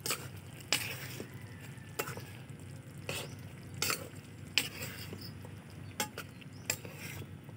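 Cooking tongs stirring a boiling stew in a wok: about eight sharp clicks and scrapes of the utensil against the pan, at irregular intervals, over a steady bubbling of the sauce.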